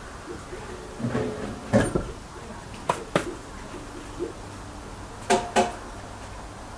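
Knocks and thuds of heavy stone blocks being handled and set down, coming in short pairs, the loudest about two seconds in.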